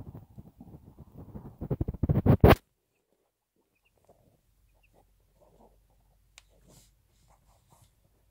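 Rustling and scratching in dry nest hay as a bantam hen's newborn chicks shift around beside her, loud and crackly for about two and a half seconds and then cutting off abruptly, followed by a few faint rustles.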